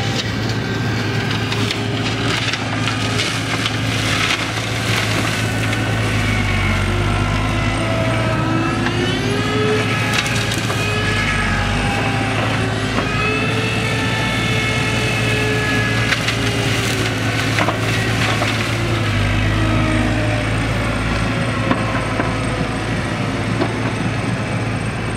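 Excavator-mounted hydraulic flail mulching head running and cutting grass over the JCB excavator's engine: a steady low hum with a whine that rises and falls in pitch, and scattered crackles from the cut material.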